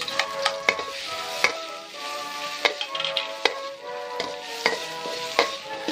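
Spatula scraping and clinking against a stainless steel wok in irregular strokes while chopped red chillies and garlic sizzle in a little oil over low heat, being toasted until fragrant. Background music plays underneath.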